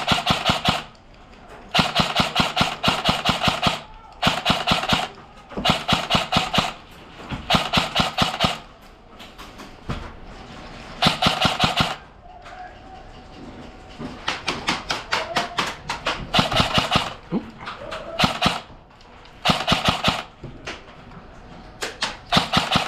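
Airsoft rifles firing full-auto in repeated bursts, each a rapid rattle of shots lasting about one to two seconds, around ten bursts with short pauses between.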